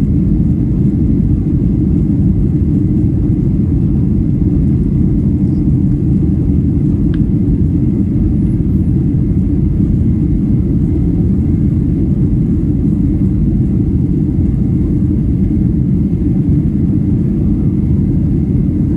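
Steady low rumble of engine and airflow noise inside the cabin of a Ryanair Boeing 737 climbing out after takeoff.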